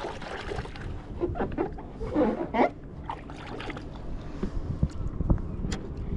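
Water lapping and sloshing against a kayak hull, with scattered small knocks and clicks. There is a short, louder sound about two seconds in.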